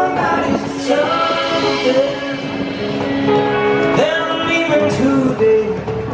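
Live band playing a folk-rock song on two acoustic guitars and a hollow-body electric guitar, with singing.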